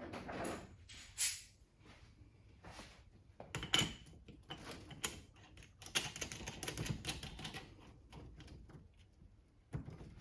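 Scattered metallic clicks and clinks of tools and differential parts being handled on a workbench, with sharper knocks about a second in and near four seconds.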